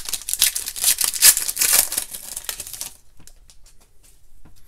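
Foil wrapper of a Panini Contenders basketball card pack being torn and peeled open by hand: fast, loud crackling and crinkling. It stops about three seconds in, leaving a few faint taps as the cards are handled.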